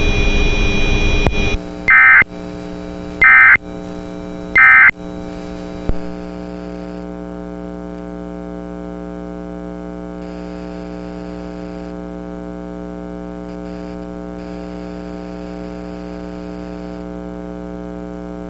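Three short warbling data bursts of the Emergency Alert System end-of-message code, about a second and a third apart, marking the close of the EAS test. They are followed by a steady electrical buzz and hum on the broadcast feed.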